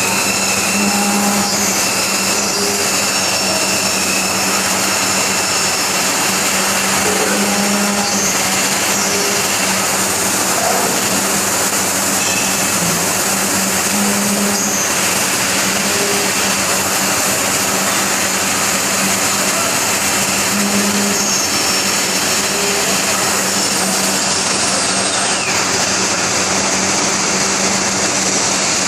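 KT 630R 3-axis CNC profile machining center running, most likely machining aluminium profile: a loud, steady rushing noise with a thin high whine over it. A low hum swells briefly about every six and a half seconds.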